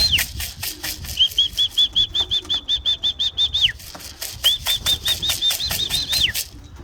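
Young racing pigeons' wings flapping close by: fast, even wingbeats, each with a high squeaky note, coming in runs of a second or two with short breaks between.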